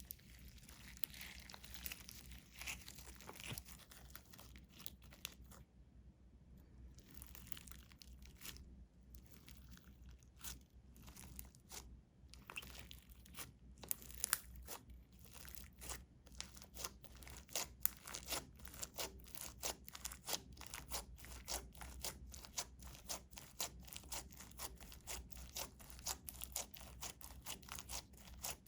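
Glitter slime being kneaded and stretched by hand, making sticky crackling and clicking pops. The pops come in irregular patches at first and turn into a dense, steady run of several clicks a second about two-thirds of the way in.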